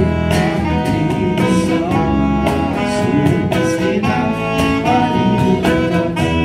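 Live band playing an instrumental break: saxophones carry the melody in held notes over strummed acoustic guitar, electric bass and a steady box-drum (cajon) beat.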